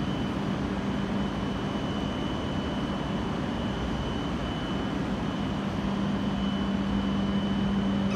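E7 series Shinkansen standing at the platform with its equipment humming steadily. A low steady tone fades out about three seconds in and comes back about six seconds in, over a faint high whine.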